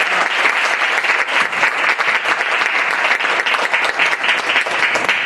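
Theatre audience applauding, many hands clapping steadily.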